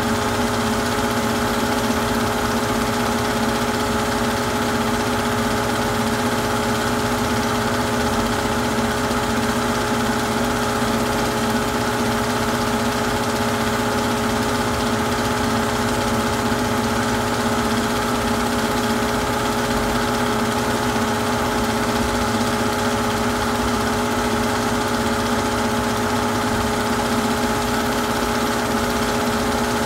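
Super 8 film projector running: a steady motor and fan hum with a whirring hiss that does not change.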